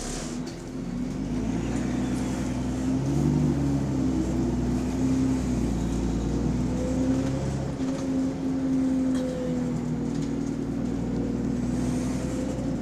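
Diesel bus engine pulling under load, getting louder about a second in, then holding with its note stepping up and down a few times. The bus has a big exhaust leak, which shows in its note.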